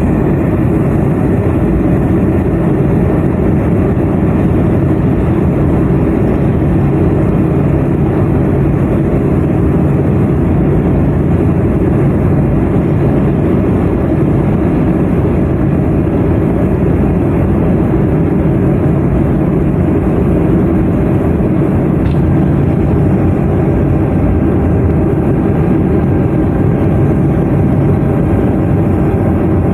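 Let L-410 Turbolet's twin turboprop engines and propellers running with a steady, loud drone, with a low hum held at one pitch throughout.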